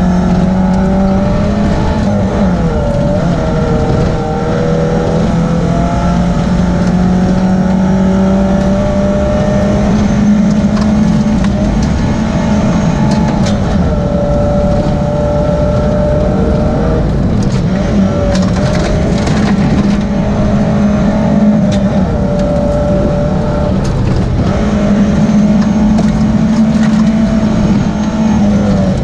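Rally car engine running hard at high, fairly steady revs, heard from inside the cabin at speed on a gravel road. Tyre and gravel noise goes on underneath, with stones clicking against the car, in a thicker cluster about two-thirds of the way through.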